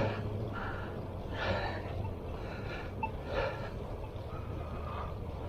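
A cyclist breathing hard while riding, with three strong breaths about two seconds apart, over a low steady rumble.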